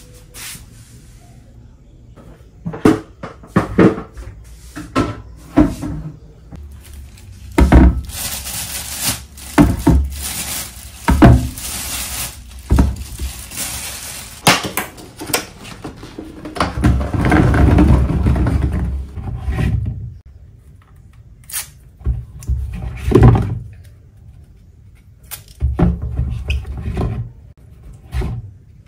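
Washing fruit at a kitchen sink: apples and plastic bowls knocking and clattering in a stainless steel sink, with a tap running for several seconds in the middle.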